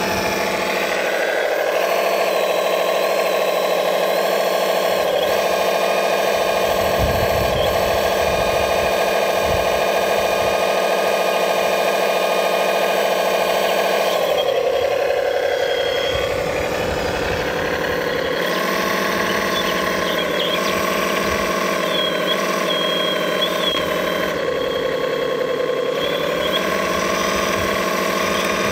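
Steady whine of the electric motors and hydraulic pumps of scale RC construction machines. The tone dips in pitch about halfway through and again near the end, with brief low rumbles in between.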